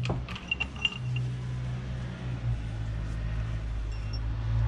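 A steady low hum, with a few light clicks and short ringing clinks about half a second to a second in, typical of parts and tools being handled on a workbench.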